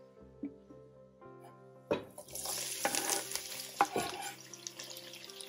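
Sliced red onions dropped into hot oil in a pan, sizzling and crackling, starting with a knock about two seconds in, with a few more knocks during the frying. Faint background music before it.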